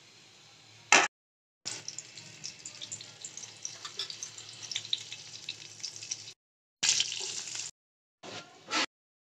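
Cumin seeds sizzling and spluttering in hot oil in a steel pan: a steady hiss full of small crackles. It comes in short clips broken by sudden cuts to silence, with a louder burst about a second in and again near the end.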